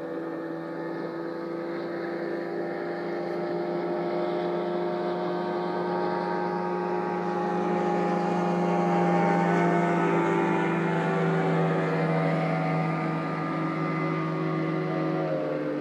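Motorboat engine running steadily underway, a droning hum that grows a little louder toward the middle; near the end its pitch drops and it quietens slightly.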